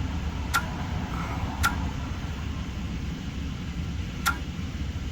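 Steady low rumble with three sharp clicks: one near the start, one about a second later, and one near the end.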